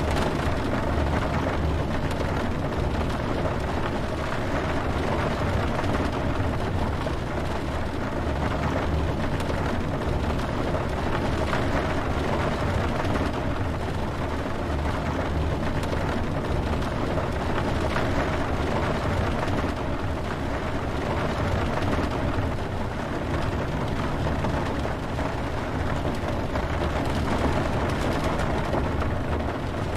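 Steady brown noise, a deep even rumbling hiss, mixed with the sound of rain falling. It does not change in level or character.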